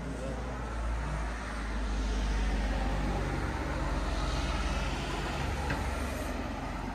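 A motor vehicle going by in the street: a low rumble with road noise that builds over the first two or three seconds and holds.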